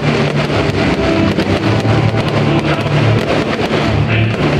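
Loud guitar-driven music playing throughout, with the many sharp pops and bangs of aerial fireworks bursting over it.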